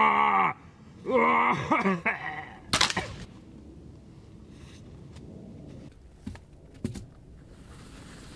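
A man groans in pain twice: a short cry falling in pitch, then a longer wavering groan. About three seconds in comes a single sharp crack, followed by faint rustling and a couple of light knocks.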